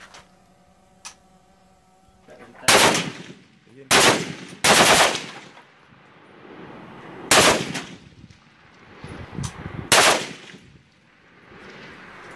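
Type 56 assault rifle (7.62×39mm) firing: about five loud reports spaced one to three seconds apart, each with an echoing tail. The one near the middle is longer than the rest.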